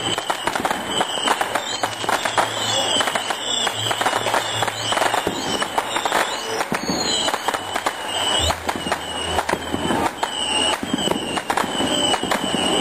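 Fireworks display: dense rapid crackling and popping from ground fountains and aerial bursts, with high whistles that glide up and down in pitch, most of them in the middle stretch.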